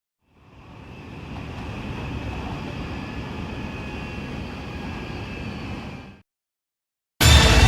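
Train running noise, a steady rumble with a faint high whine, fading in over the first second or two and then cut off abruptly. After a short silence, loud electronic music starts near the end.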